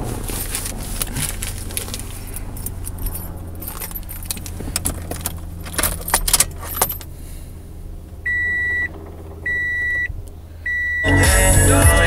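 Car keys jangling and clicking for the first several seconds, over a steady low hum. Then the Toyota Yaris's dashboard chime beeps three times, evenly spaced, and the car stereo comes on playing music near the end.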